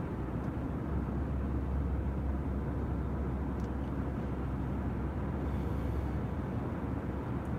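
Steady road and engine noise of a car driving, heard inside the cabin: a low rumble that grows a little louder about a second in.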